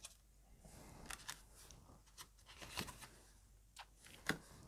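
Small paper journaling cards handled and shuffled by hand: faint paper rustles and light ticks, a handful scattered through, the sharpest about four seconds in.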